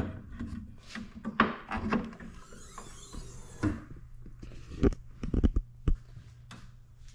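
A run of knocks and clicks, with a brief high metallic squeaking scrape about two and a half seconds in, as the Pontiac Trans Am's hood is opened, over a steady low hum.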